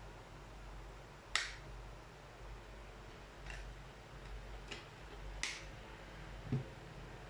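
Sharp plastic clicks from the casing and battery cover of a digital blood pressure monitor being handled and switched on, four clicks spread over a few seconds, then a dull knock as the unit is set down on the table near the end.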